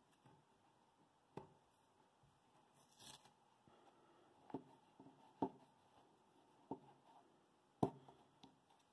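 Near silence broken by a handful of faint, irregular taps and a brief rustle as a green knit hand puppet is moved over a wooden tabletop and a paper card; the sharpest tap comes near the end.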